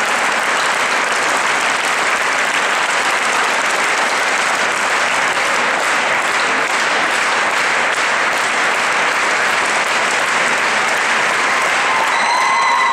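Large crowd applauding, a dense, steady clatter of many hands clapping. Near the end, a held high-pitched call sounds over the applause.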